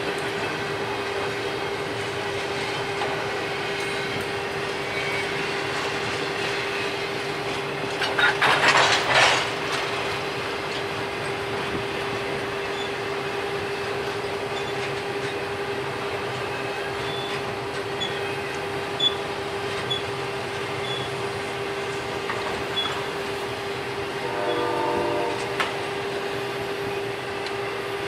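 Union Pacific double-stack intermodal train's container well cars rolling past, a steady rumble with a constant hum from the wheels on the rail. About eight seconds in there is a louder, harsh burst of noise, and near the end a short pitched tone.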